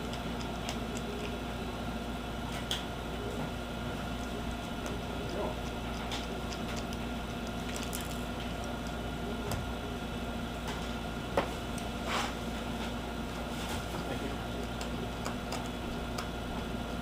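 Small screws being backed out of a laptop screen's back bezel with a screwdriver: faint scattered clicks and ticks, with one sharper click about eleven seconds in, over a steady electrical hum.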